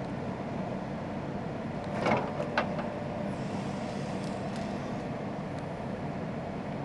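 Komatsu PC220LC-7 excavator's diesel engine running steadily, with a few sharp metal clanks about two seconds in as the arm and attachment shift.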